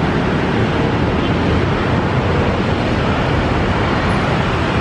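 Steady traffic noise mixed with wind on the microphone.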